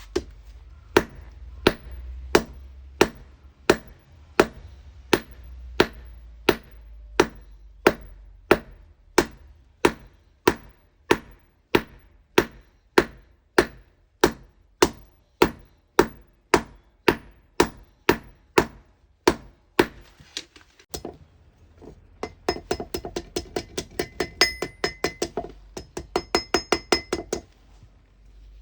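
Hammer forging an iron rod on an anvil: steady, evenly paced blows about one and a half a second. After a short pause comes a quicker run of lighter taps that leave the anvil ringing.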